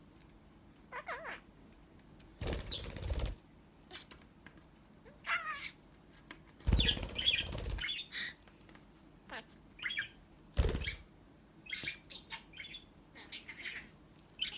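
Pet budgerigar chirping and chattering in short, scattered calls, with three louder bursts of wing flapping, about two and a half, seven and ten and a half seconds in.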